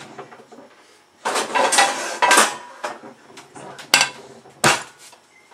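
Metal pots and pans clattering and scraping for about a second, then two sharp metallic clanks as a frying pan is set down on a gas stove's burner grate.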